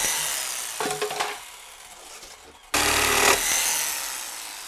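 Corded jigsaw cutting a laminate floor board in short bursts: one at the start and a louder one about three seconds in. After each burst the motor winds down with a faint falling whine.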